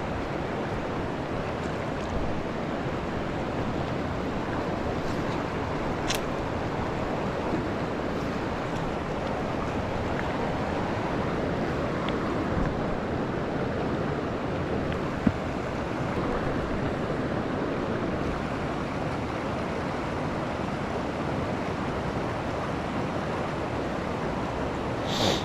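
Steady rush of a mountain trout stream's flowing water, with a brief sharp tap about midway.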